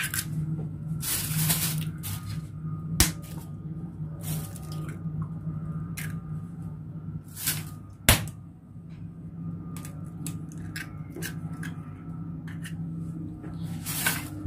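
Eggs being cracked and broken into a bowl: two sharp taps of shell, about five seconds apart, with softer crunching and handling of the shells between, over a steady low hum.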